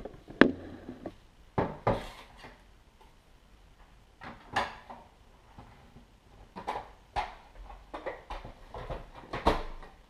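Plastic water tank of a Saeco Odea Go espresso machine being handled and fitted back into the machine: a series of separate knocks and clunks of hard plastic against the machine and countertop, the sharpest about half a second in.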